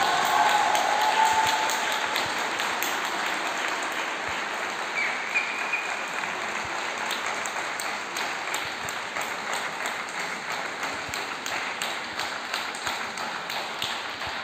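Audience applauding, the clapping slowly thinning out; the last notes of music fade away in the first second or so.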